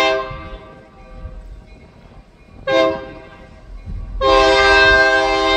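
A diesel freight locomotive's air horn sounding a grade-crossing pattern: a long blast dies away at the start, a short blast comes about three seconds in, then a final long blast from about four seconds, over the low rumble of the approaching train.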